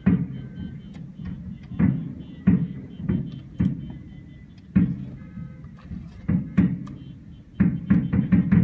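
Distant fireworks shells bursting: a series of sharp booms with echoing tails, about one a second, quickening into a rapid volley near the end.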